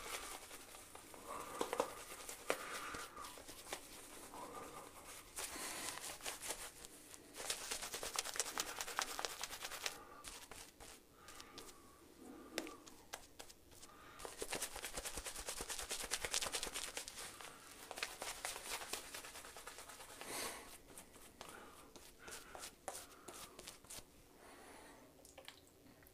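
Coyote Cuts 24mm synthetic shaving brush swirling lather on a bearded face: a faint, fine wet crackling that comes and goes in spells of a few seconds.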